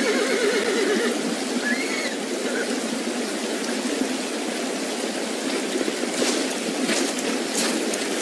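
Recreated soundtrack of a creek rushing steadily, with a short horse whinny at the very start and a few sharp clicks near the end.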